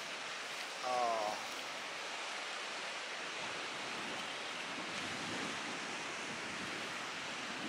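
Small surf breaking and washing up a sandy beach in a strong wind, an even rushing noise. A brief pitched call stands out about a second in.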